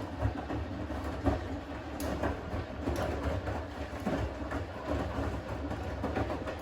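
Siemens front-loading washing machine in its main wash, the drum turning the wet laundry in extra water (Wasser plus option), with a low motor hum and irregular knocks and thuds from the load.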